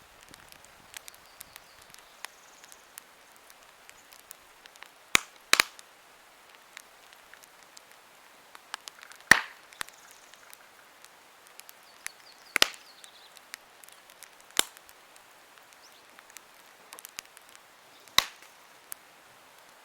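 Wood campfire crackling: a scatter of small ticks from the burning wood, broken by about six loud, sharp pops, two of them close together about five seconds in.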